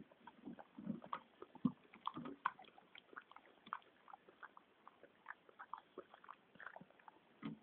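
Staffordshire bull terrier chewing and gnawing a chewy stick: irregular crunches and clicks of teeth on the stick, busier in the first couple of seconds, with one louder crunch near the end.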